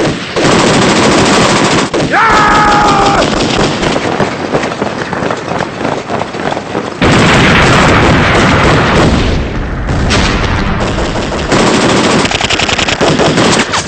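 Dense, continuous rifle and light-machine-gun fire, rapid shots overlapping without a break. A short shout cuts through about two seconds in, and the firing grows heavier and deeper about seven seconds in.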